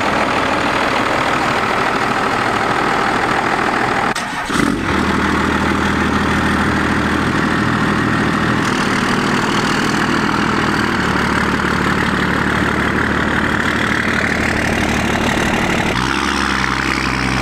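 First-generation Dodge Ram's 12-valve Cummins inline-six diesel running, with a short break about four seconds in, then idling steadily. Near the end it rises in pitch as the truck pulls away.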